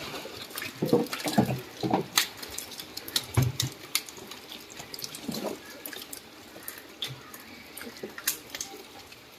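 Live hybrid magur catfish being handled: wet slaps and splashes at irregular intervals as the slippery fish flop on a wet plastic sheet and are thrown into a wicker basket. There are a few heavier thuds around the first two seconds and again about three and a half seconds in.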